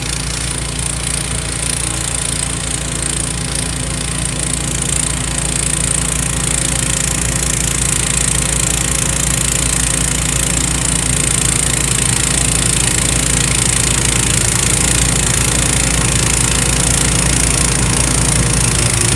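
Honda HSS1332 snowblower's engine running steadily as it clears snow, slowly getting louder as the machine comes closer, with a steady high hiss over the engine note.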